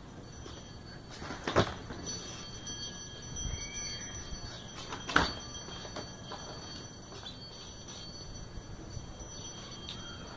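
Two sharp skateboard clacks, about three and a half seconds apart, as the board's deck and wheels slap down during flat-ground trick attempts.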